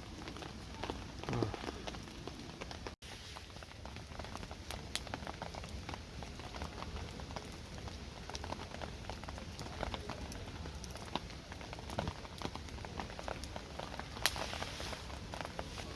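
Steady rain falling, with many small drops ticking on a surface. The sound drops out for an instant about three seconds in, and there is a brief louder patter near the end.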